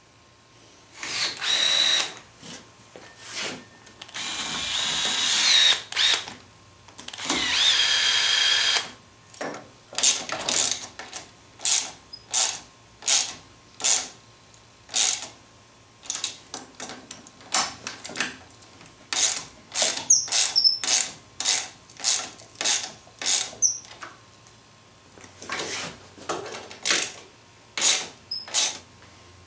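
Nuts being tightened onto bolts with a hand ratchet: a long string of short ratcheting strokes, about two a second, after a few longer metallic rattles in the first nine seconds.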